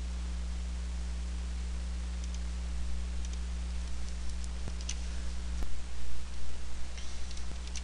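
Steady low hum and hiss of the recording room, with a few faint, sharp computer mouse clicks, two of them about a second apart past the middle.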